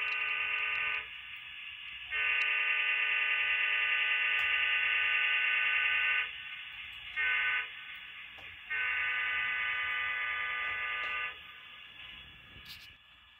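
Model diesel locomotive's sound-system horn blowing the grade-crossing signal: long, long, short, long.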